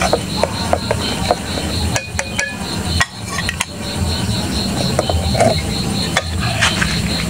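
A metal spoon stirring, scraping and clinking against a steel cooking pot over a wood fire, with short knocks. Crickets chirp steadily behind it at about five pulses a second.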